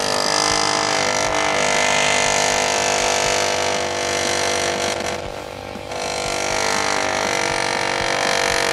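Ingersoll Rand 114GQC air chisel hammering as it cuts across a pickup door's sheet metal: a loud, steady buzzing chatter that eases briefly about five seconds in, then picks up again.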